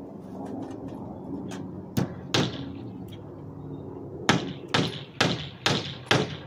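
Estwing hammer driving wire nails into the wooden panels of a speaker box: two blows, a short pause, then a steady run of five strikes about two a second.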